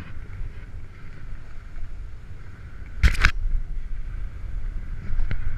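Snowboard sliding over hard, tracked snow, with wind rumbling on the body-worn camera's microphone. A short, loud burst of noise comes about three seconds in, and a small click near the end.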